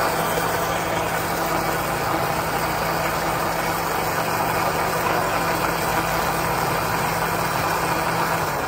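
A machine running steadily, with a constant low hum under a dense, even noise.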